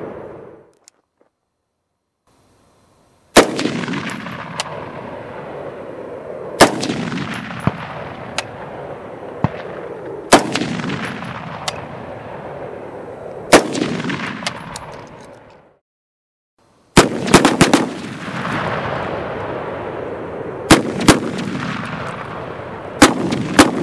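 Short-barrelled AR-15 pistols firing steel-cased .223 ammunition. First come four single shots about three seconds apart, then after a short break quicker strings of two and three shots. A steady rushing noise fills the gaps between shots.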